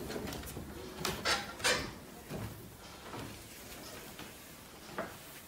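Footsteps on wooden stairs: a few soft knocks and thuds, the loudest between one and two seconds in and one more near the end.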